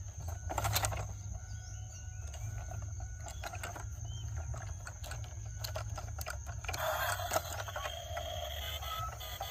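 Scattered small clicks and light knocks over a steady low hum, with a short rushing noise about seven seconds in.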